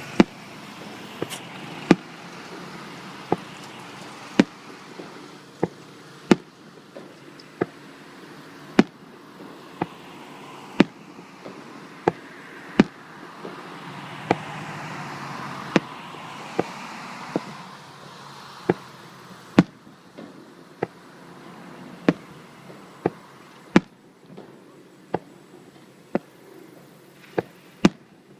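Aerial fireworks going off in a long run of sharp bangs, roughly one a second at uneven spacing, over a continuous background rumble and hiss.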